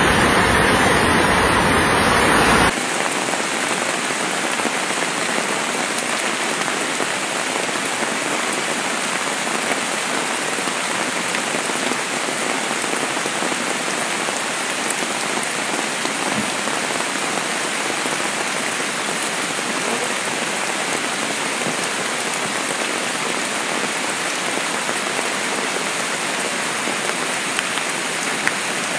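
Steady hiss of heavy rain falling. For the first few seconds, a louder rush of the swollen, flooding Abrojo river is heard, which cuts off abruptly.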